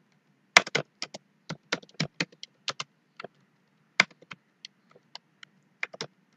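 Computer keyboard typing: irregular runs of sharp keystroke clicks, quick and dense at first, then sparser after a short pause about three seconds in.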